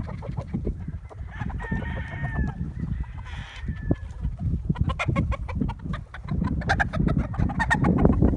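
Chickens clucking in short, rapid calls, with a rooster crowing about two seconds in, over a low rumble.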